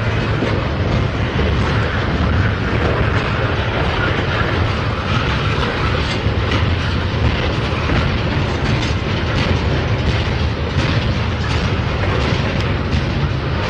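Freight train cars rolling past with a steady heavy rumble, the wheels clicking over rail joints, more distinctly from about five seconds in.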